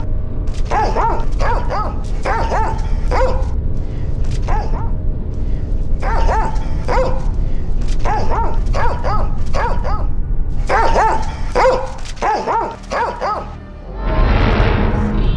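A dog barking repeatedly in runs of several short barks, over a steady low music drone. About a second before the end, a loud rushing noise lasts for about a second.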